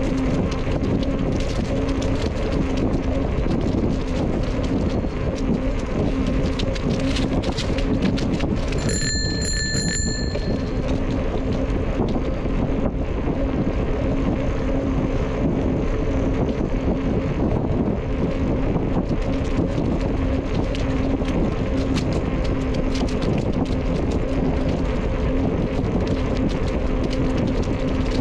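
Steady wind rush on the microphone and a low hum while riding a bicycle, with a bicycle bell rung briefly about nine seconds in: a quick ring of two or three strikes lasting about a second and a half.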